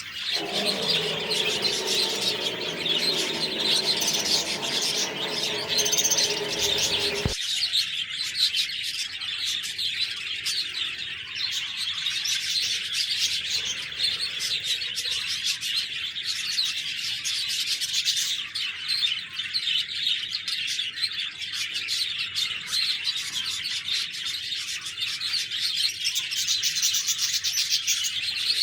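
A flock of budgerigars chattering and chirping continuously in high, rapid tweets. Underneath, a lower pitched sound with overtones runs for about the first seven seconds and then cuts off abruptly.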